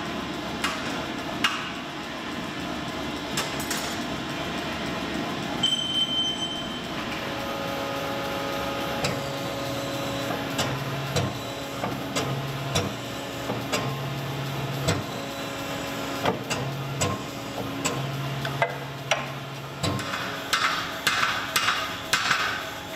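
Hammer blows on a hot steel carving axe head being forged, with irregular sharp impacts from the power hammer and a denser run of hand-hammer strikes on the anvil near the end, over a steady low hum.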